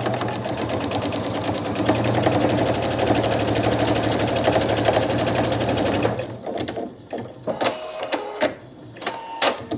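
Electric sewing machine stitching a quilting line through layered cotton fabric and batting, a fast even needle rhythm at a steady speed, stopping about six seconds in. After it stops come a few scattered clicks and knocks as the work is handled at the machine.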